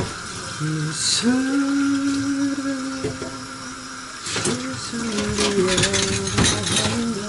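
A man singing in long held notes while washing dishes under a running kitchen tap, with a couple of sharp clatters of pots and dishes in the sink partway through.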